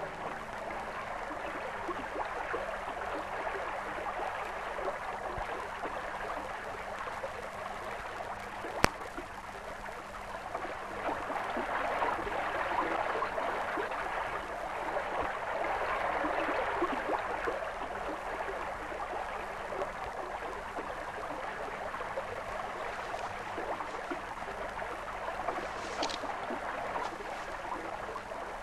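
Running water, a steady splashing rush that grows louder for a few seconds around the middle. There is one sharp click about nine seconds in and a short high squeak near the end.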